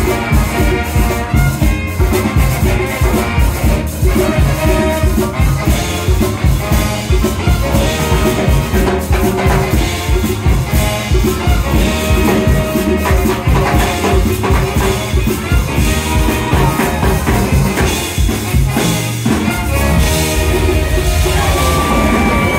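Live band playing an upbeat groove with a steady drum-kit beat, a horn section of trombone and saxophones, and a metal cylinder shaker.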